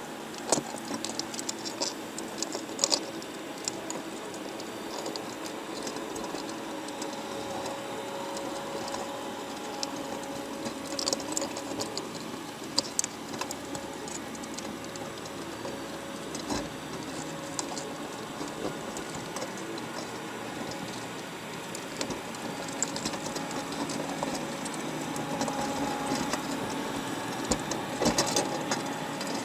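Underwater sound inside a wire crab trap: a steady hum under scattered clicks and scrapes, with small clusters of sharp ticks from crab shells and legs knocking against the trap mesh and camera as the crabs crowd over the bait.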